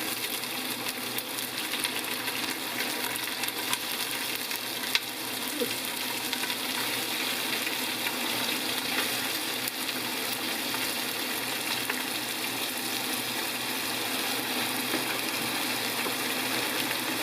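Food frying in a pan, a steady sizzle with fine crackling.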